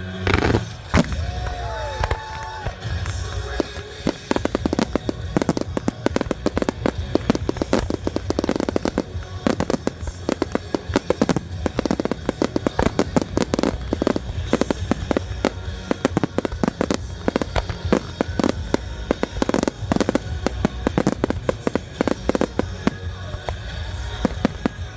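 Fireworks display firing in dense, rapid volleys, many bangs and crackles a second in quick succession, over music playing.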